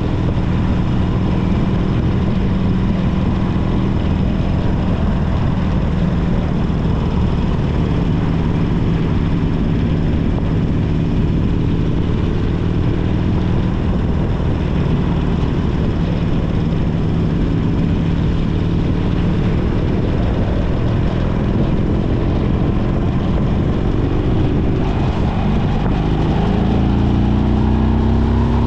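Harley-Davidson Sportster 1200 Custom's air-cooled V-twin engine running steadily at cruising speed, with wind and road noise. Near the end the revs climb as the bike accelerates.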